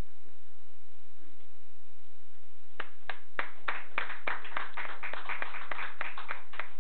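A small audience clapping, starting about three seconds in.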